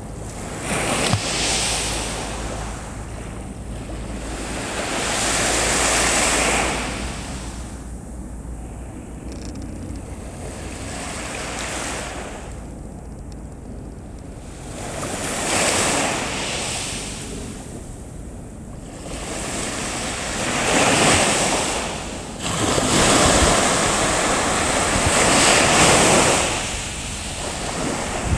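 Small waves washing onto the shore. The noise of the water swells and fades every few seconds, over a low rumble of wind on the microphone.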